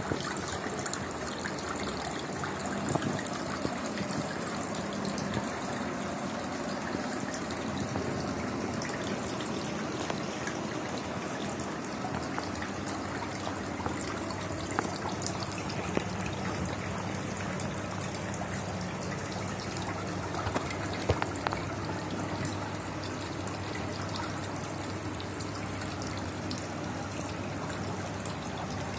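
Small decorative fountain spraying and trickling steadily into a shallow tray of water, with a few light clicks.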